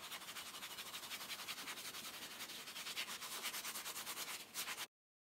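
Dry cloth rag rubbed briskly back and forth along a steel chisel, wiping off dried metal polish, in quick, even strokes. The rubbing cuts off suddenly near the end.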